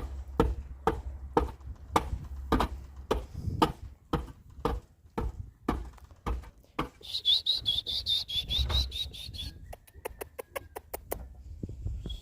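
Hammer blows on wood, about two a second, for the first seven seconds or so while a pig-pen door is fastened. Then a bird chirps for a couple of seconds, and a quick run of light taps follows.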